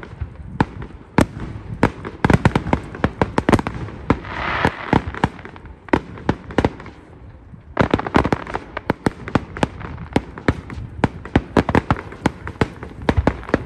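Fireworks display: a rapid, almost continuous string of bangs and crackles from aerial fireworks bursting. There is a brief hiss about four seconds in, a short lull around seven seconds, and then a dense run of cracks again.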